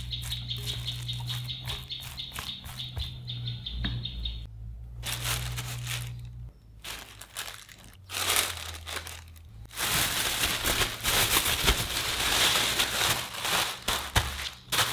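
Silicone spatula stirring chopped potato and potato starch in a glass bowl: a quick run of short scraping, crunching strokes. After a brief lull the strokes come more sparsely, and about ten seconds in a louder, dense, continuous crackling takes over.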